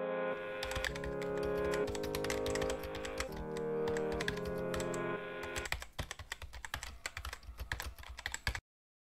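Rapid computer-keyboard typing clicks over background music of held chords that change about once a second. The music stops about two-thirds of the way in, the typing goes on alone, and then it cuts off suddenly near the end.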